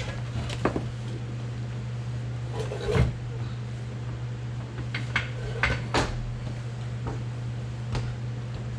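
Scattered metal clanks and knocks from tools and parts while a transmission is worked out from under a pickup truck onto a floor jack, over a steady low hum.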